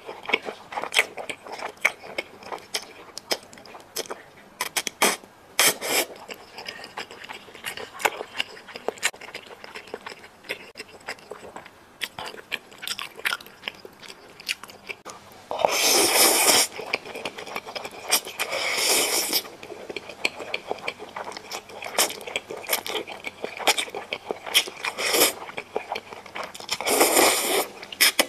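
Close-miked eating sounds: wet chewing and smacking of thick noodles in soy bean paste sauce, with many small mouth clicks. Three loud slurps of about a second each come around the middle and near the end.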